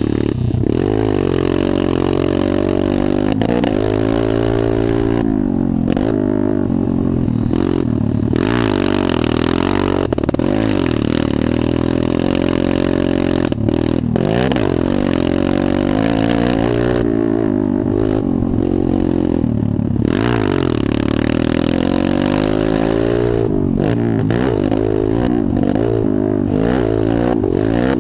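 Motocross dirt bike engine revving up and dropping back over and over as the rider works the throttle around the track, with a few brief throttle chops.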